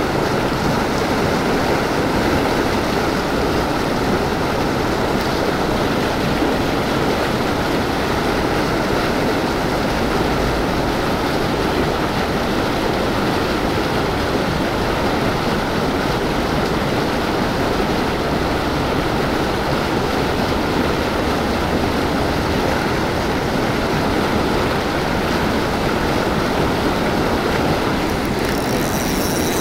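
Steady rush of turbulent river water churning white as it flows past, an even noise with no breaks.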